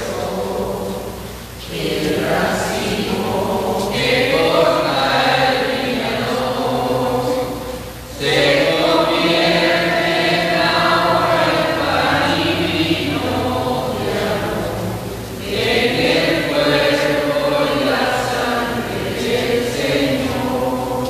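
A group of voices singing a slow hymn together, in long held phrases with a short breath about every seven seconds.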